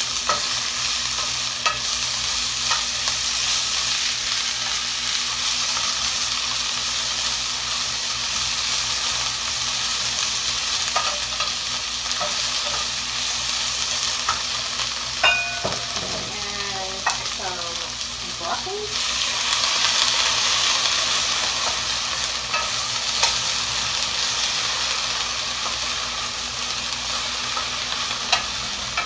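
Vegetables (baby bok choy, okra, snow peas and broccoli) sizzling in olive oil in a hot stainless-steel skillet, stirred with a wooden spoon, with occasional light clicks of the spoon against the pan. The sizzle grows louder about two-thirds of the way through.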